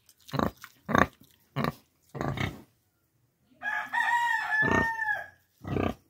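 Pigs grunting in short bursts, four in the first two and a half seconds and another near the end. About three and a half seconds in, a rooster crows once, a long held call of about a second and a half.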